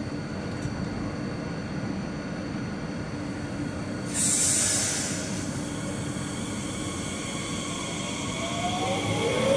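Bombardier Talent 2 (class 1442) electric multiple unit standing at the platform with a steady hum. About four seconds in there is a short, loud hiss of air. Near the end the train starts to pull away, and the whine of its traction drive rises in pitch.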